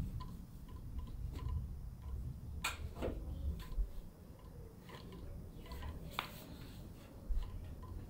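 Faint, regular ticking about twice a second, with a few sharp clicks, the clearest about two and a half seconds in and again about six seconds in, while a person stands on a patient's sacrum on a treatment table.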